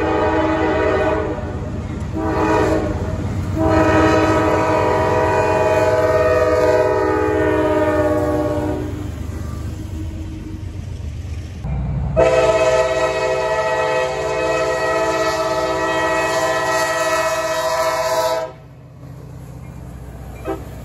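Diesel freight locomotive air horns sounding multi-tone chords over the low rumble of a passing train. Three shorter blasts are followed by a long blast of about five seconds. After an abrupt cut, a second horn is held for about six seconds and then stops suddenly.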